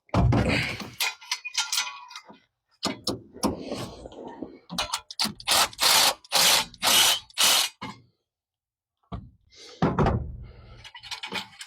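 Hand tools working on a 1988 GMC Sierra's engine during spark plug removal: a heavy clunk, then a run of about six quick rasping ratchet strokes as a plug is worked loose, and another clunk near the end.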